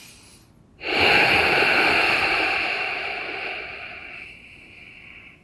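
A person's long, forceful breath out close to the microphone, starting suddenly about a second in and fading away over about four seconds.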